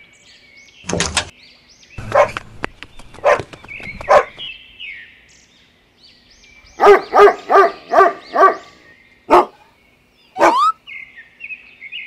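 A dog barking: a few single barks, then a quick run of five barks about seven seconds in, then two more, with faint high chirps between.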